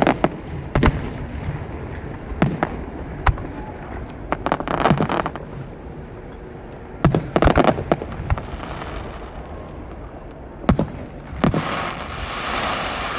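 Aerial fireworks shells bursting: single sharp bangs and quick clusters of reports, about a dozen in all, with a denser hissing crackle building near the end.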